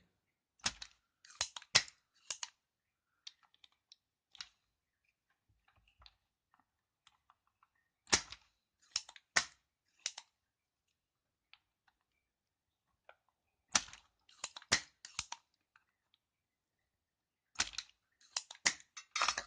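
Spring-loaded solder sucker (desoldering pump) being cocked and fired to pull melted solder off keyboard switch pins: four groups of sharp snaps and clicks, several seconds apart.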